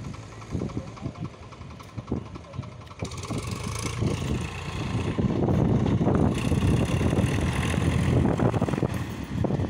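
Powertrac 39 hp diesel tractor engine working hard under the load of a trailer. It grows much louder about three seconds in and runs loud and steady through the rest.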